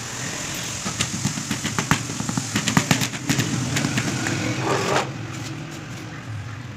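Rubber mallet tapping a marble floor slab down into its sand bed: a quick, irregular run of knocks for a few seconds, easing off after about three and a half seconds.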